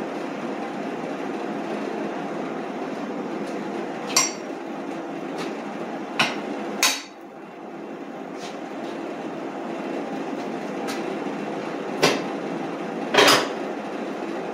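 Five sharp metal clanks and knocks, spaced irregularly, as steel hitch parts are handled and clamped on an ATV's steel rear rack, over a steady background drone.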